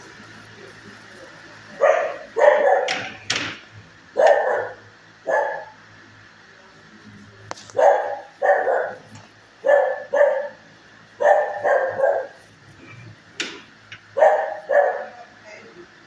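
Dogs barking in shelter kennels: short barks, often in pairs, starting about two seconds in, over a low steady hum.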